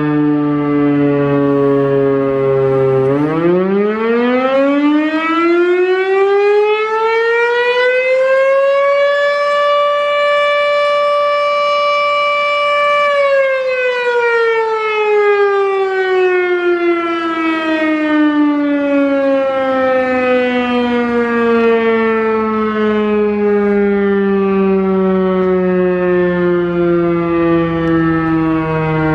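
Sentry 14V electromechanical fire siren sounding a long fire signal: it holds a low pitch for about three seconds, winds up steeply to its full pitch, holds it steady for about four seconds, then slowly winds back down to a low pitch.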